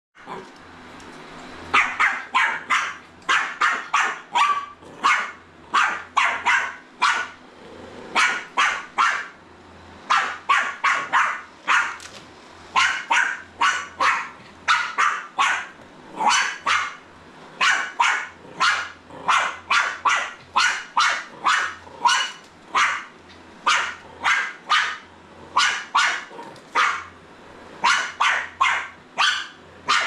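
Jack Russell terrier puppy barking at a robot vacuum, in rapid runs of barks several a second with short breaks between runs, starting about two seconds in.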